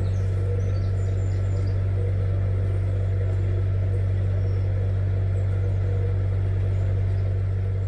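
Narrowboat engine running steadily at cruising speed, an even low hum. A few faint bird chirps near the start.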